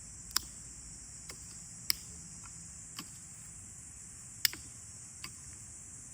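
About six sharp clicks and knocks at uneven intervals, the loudest about half a second, two seconds and four and a half seconds in, over a steady high-pitched hiss or buzz.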